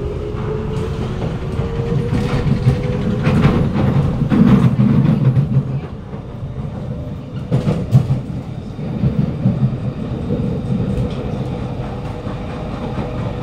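Heard from inside the carriage, the traction motors of a Kawasaki Nippon Sharyo C751B metro train whine strongly as it pulls away, the whine rising slowly in pitch and then levelling off, over a steady rumble of wheels on rail. The wheels clatter over the track in loud bursts of clicks a few seconds in and again about eight seconds in.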